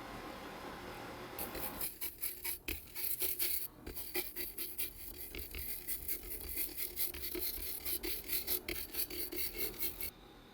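A brush scrubbing a laptop logic board clean with cleaning solution: a fast, irregular run of scratchy strokes that starts about a second and a half in and stops shortly before the end, after a steadier hiss.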